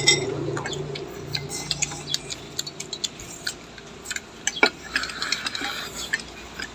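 Irregular light clicks of chopsticks and spoons tapping against stainless steel rice bowls during a meal, with one sharper click a little past halfway.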